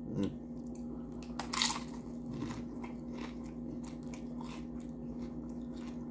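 A person biting into a topping-laden Doritos chip and chewing it: one loud crunch about a second and a half in, then a run of softer, repeated crunches as it is chewed.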